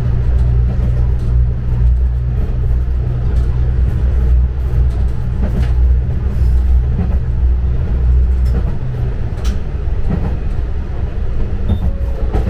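Diesel railcar of the Hojo Railway running along the line, a steady low engine drone with rail clicks; the engine drone drops away about two-thirds of the way through as the railcar coasts.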